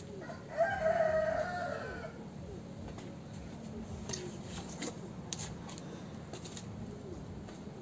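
A rooster crowing once, a single call about a second and a half long starting about half a second in.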